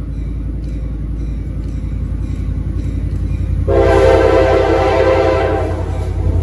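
EMD F40PH-2 locomotive's diesel engine rumbling as it approaches under power, growing slowly louder. A little under four seconds in, its Nathan K5LA air horn sounds one blast of about two seconds.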